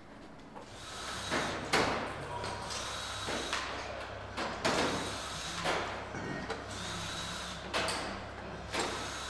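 Engine assembly workshop sounds: a steady low hum, with about eight sharp knocks and clanks of tools and metal parts being handled.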